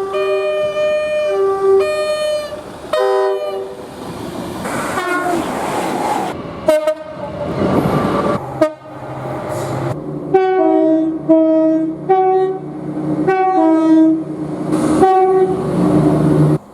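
Two-tone train horn played in quick strings of short blasts that switch back and forth between a high and a low note. About halfway through, a train passes at speed with a swelling and fading rush of noise and some sharp clicks. Then comes another run of short two-note horn blasts over a low engine drone.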